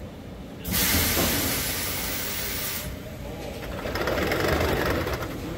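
Industrial machinery running: a sudden loud hiss of air starts under a second in and lasts about two seconds, then gives way to a lower, rougher mechanical noise that swells near the end.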